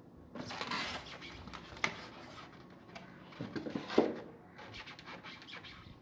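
Handling noise from unpacking a PC case: the styrofoam packing and plastic wrap scrape and rustle against the case. There is a sharp knock about two seconds in and a louder one about four seconds in.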